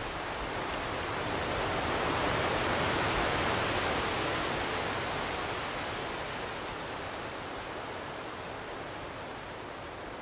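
Wind through aspen trees, the leaves rustling in a steady hiss that swells to a peak about three seconds in, then slowly eases off.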